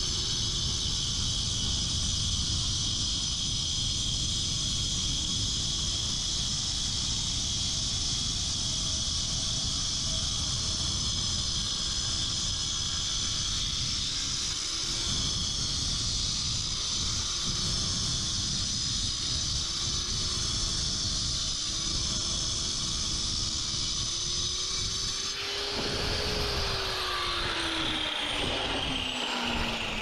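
Power saw cutting through a concrete paving block, the motor's pitch wavering under load. About 25 seconds in the cut ends and the blade winds down with a steadily falling whine.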